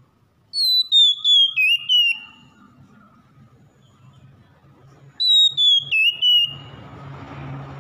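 Oriental magpie-robin singing two clear whistled phrases, each a quick run of notes stepping down in pitch, the second about four and a half seconds after the first. A steady hiss with a low hum comes up near the end.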